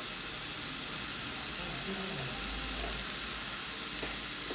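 Slices of pork belly sizzling steadily on a hot round tabletop grill pan, an even hiss.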